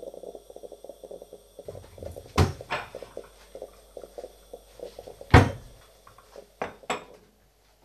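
Drip coffee maker sputtering and gurgling in quick small pops as it finishes brewing, while a wall cupboard door is opened and shut with two sharp knocks, the louder one about five seconds in. Near the end a cup and saucer are set down on the counter with two clacks.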